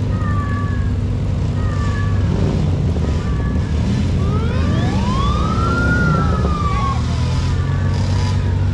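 An emergency-vehicle siren winding up and back down once, over a steady engine rumble, with short high chirps repeating about once a second.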